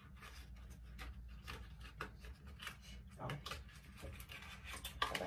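Light handling noises, scattered small clicks and rustles, over a low steady hum.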